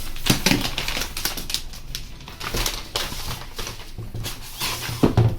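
Packing material being unwrapped and handled: a busy run of crackling, rustling clicks, with a few louder knocks near the end.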